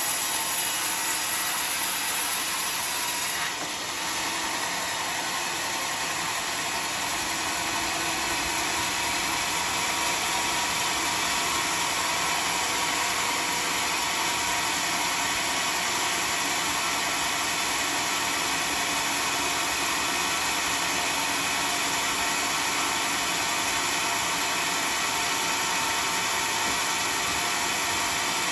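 Homemade band sawmill running steadily, its blade sawing through teak. A high hiss drops out about three and a half seconds in, and the machine then runs on evenly.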